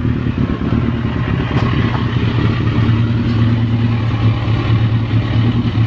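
Yamaha XJR400's air-cooled inline-four engine idling steadily at about 1,000 rpm, its carburettor fuel screws just adjusted.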